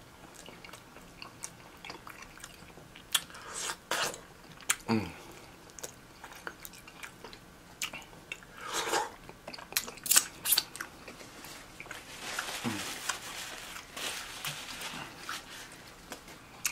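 A person eating close to the microphone: chewing, with scattered sharp clicks and short crunches.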